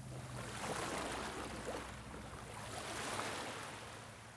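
Ambience of moving water: a steady rush of water with a faint low hum under it, fading out near the end.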